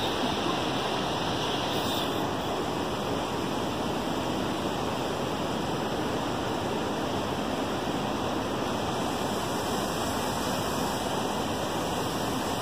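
Steady rushing of a fast, rocky mountain river.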